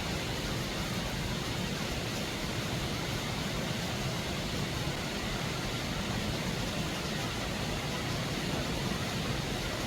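Steady rushing of water in a mountain stream: an even, unbroken noise.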